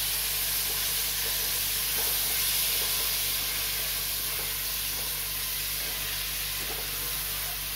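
Freshly added chopped tomatoes sizzling in hot oil and fried onion-spice masala in an aluminium pressure cooker, stirred with a wooden spatula that scrapes the pot every second or so over a steady frying hiss.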